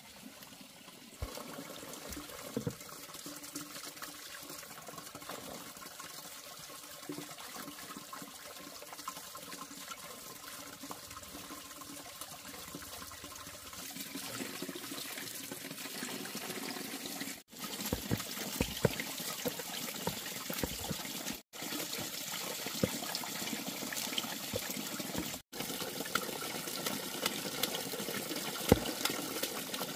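Water running steadily from a bamboo pipe spout, splashing onto wet logs and into a plastic basin, with scattered small knocks of a knife and hands as a bamboo shoot is washed and peeled. The water grows louder about halfway through and the sound cuts out for an instant three times.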